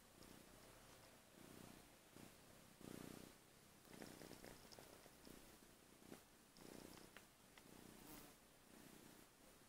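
Young cat purring softly, the purr swelling and fading with each breath about every second and a half.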